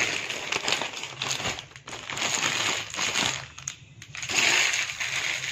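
Dry rustling noise in about three swells as a hand handles and scatters dried pomegranate seeds (anardana) over layered biryani rice in a pot.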